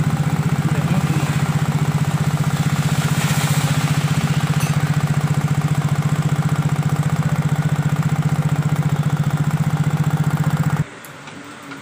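Yamaha Mio J scooter's single-cylinder engine idling with a loud, steady clattering ("klotok-klotok"), very noisy; the mechanic puts it down to a spark plug that could be fitted too loosely, with its cap wobbling, rather than the one-way starter gear. The sound cuts off about a second before the end.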